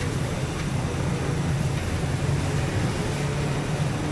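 A pathora deep-frying in a wok of hot oil, sizzling steadily over a steady low rumble.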